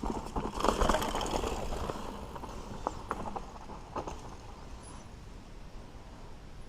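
Mountain bike clattering over rough dirt singletrack: a dense run of knocks and rattles from the frame, chain and tyres hitting bumps. It is loudest about a second in, then eases off.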